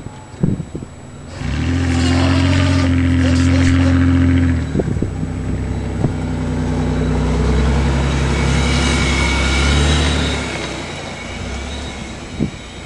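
Car engine working under load as it plows snow: it picks up about a second and a half in, drops in pitch a little past the four-second mark, holds steady until about ten seconds in, then eases off. A few sharp knocks are heard along the way.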